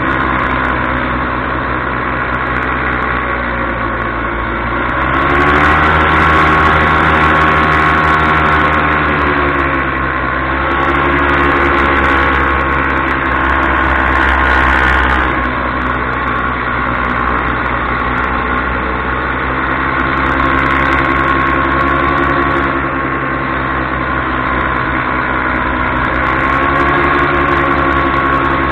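Paramotor engine and propeller running in flight, its pitch climbing about five seconds in, then easing and rising again several times as the throttle is worked.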